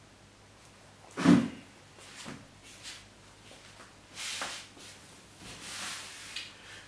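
A man moving about a small room: a single loud thump about a second in, a few light footfalls and knocks, then clothing rustling as he sits down in an upholstered chair near the end.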